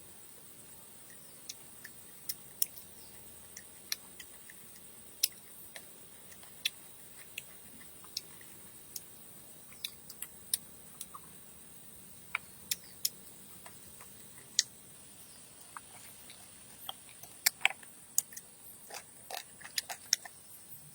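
Sharp clicks and crackles at irregular intervals, coming thicker near the end, over a steady high-pitched hiss.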